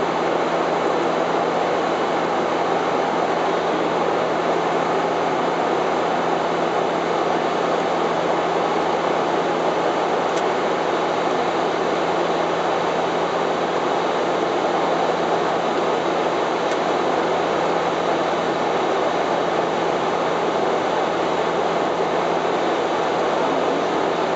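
Steady cockpit noise of a Bombardier DHC-8-400 in flight: the drone of its Pratt & Whitney PW150A turboprops and propellers under an even rush of airflow, with a steady low hum.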